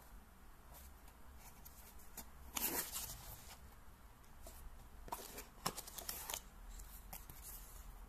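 Hands opening a small cardboard box and handling the folded paper manual inside: a burst of cardboard scraping and rustling about two and a half seconds in, then more paper rustles and light taps a few seconds later.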